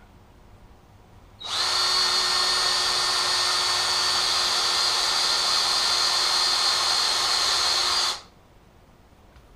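Cordless drill running steadily at one speed, boring into a block of wood. It starts about a second and a half in and stops abruptly near the end.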